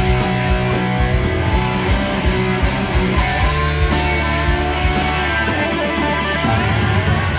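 Hard rock band playing live: loud electric guitars over drums, with sustained and bending guitar notes in the middle.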